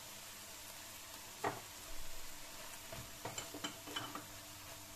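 Diced aubergine, onion and red pepper sizzling gently in a frying pan, then stirred with the freshly added paprika and dried herbs: a single knock about a second and a half in, followed by a run of short knocks and scrapes against the pan.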